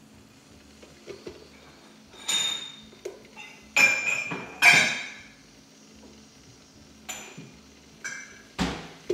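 Cups and kitchenware clinking and knocking against each other and the counter: about half a dozen sharp clinks with a brief ring, the loudest two near the middle. A steady low hum runs underneath.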